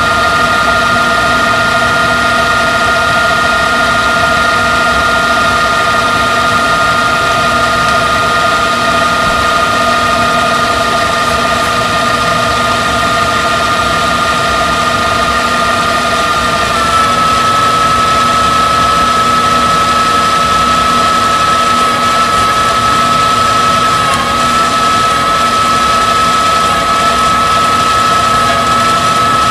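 LG V194H DVD/VCR combo's reel drive winding a T-120 VHS cassette at high speed, a steady mechanical whine over a noisy whir. About seventeen seconds in, the whine's pitch shifts slightly and settles on a single tone.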